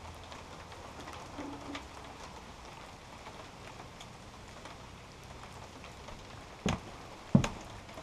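Two sharp knocks close together near the end, as a sheet-metal sawdust baffle is fitted by hand at a bandsaw sawmill's blade guide, over a steady faint hiss with a low hum.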